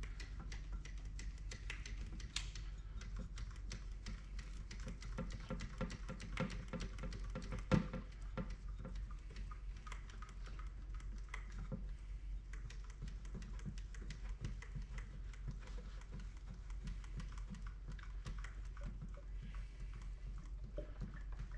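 Hand caulking gun being squeezed over and over, a dense run of light clicks and clacks from its trigger and plunger rod as it pushes polyurethane grout out of the tube into a grease gun's cylinder. A louder knock comes about eight seconds in.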